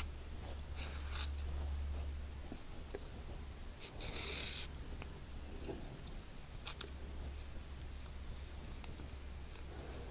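Satin ribbon rustling softly and small handling ticks as a ribbon bow is pinched and worked by hand, with one louder rustle of about half a second midway, over a low steady hum.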